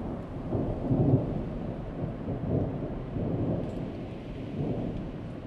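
Low rolling thunder rumble with a faint hiss of rain, swelling and easing in waves, loudest about a second in.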